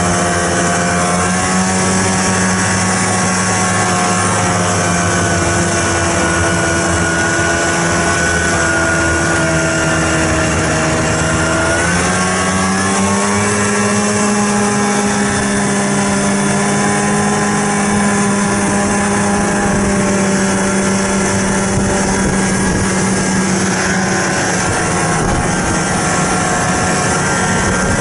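Snowmobile engine running steadily while travelling. Its pitch sags slowly and then rises sharply about twelve seconds in as the throttle opens, holding steady after that.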